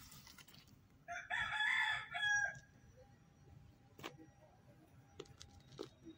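One loud, drawn-out animal call about a second in, lasting about a second and a half and ending in a short separate note. A few faint clicks follow.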